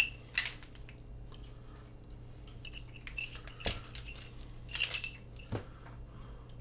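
Handling of a motorcycle wiring harness in its plastic bag: a few short bursts of plastic rustling and crinkling, with a couple of sharp clicks or knocks from the harness connectors, over a faint steady hum.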